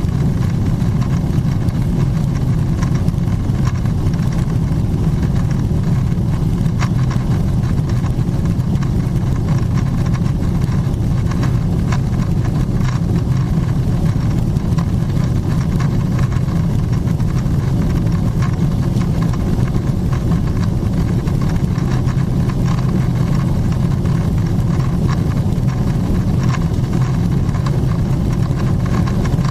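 Steady cabin noise of a Boeing 777-300ER in climb: the drone of its GE90-115B engines at climb power and the rush of air over the fuselage, heard from a window seat over the wing. A deep, even rumble that does not change.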